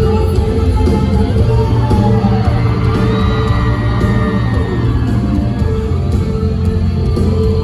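Live rock band playing loudly through a concert PA, with heavy bass and electric guitar, while audience members scream and whoop over the music.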